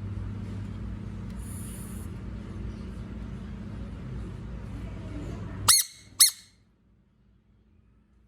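A frog giving two short, loud, high-pitched screams about half a second apart, the distress scream of a frog being touched. Before them there are several seconds of low rumbling noise.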